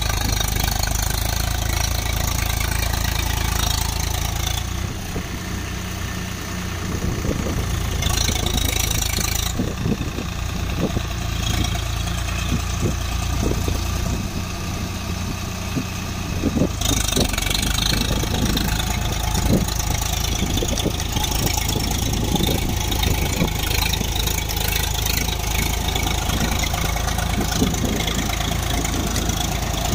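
Swaraj 742 XT tractor's three-cylinder diesel engine running steadily under load while it drives a rotavator through dry soil, with scattered short knocks and clatter through the middle stretch.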